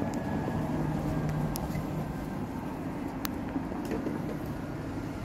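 Steady low rumble with a faint hum and a few light clicks.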